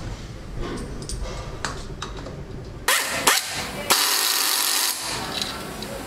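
Pneumatic screwdriver driving hex bolts into a motorcycle engine's crankcase cover: a hissing whir starts suddenly about halfway in, is loudest for about a second, then eases. A low hum lies under the first half.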